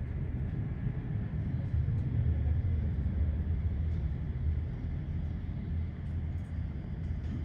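Steady low rumble with a faint hiss inside an Airbus A320neo cabin, swelling slightly in the middle.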